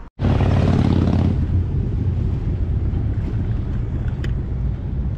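Wind rumbling on the camera microphone while riding a bicycle along a road: a steady low rumble, brighter and harsher for about the first second.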